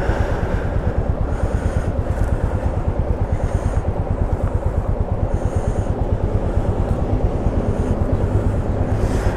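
Motorcycle engine running steadily while riding, with an even, rapid pulse.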